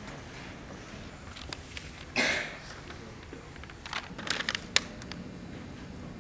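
Paper and pen being handled on a wooden table: a short rustle of paper about two seconds in, then a quick run of light clicks and taps.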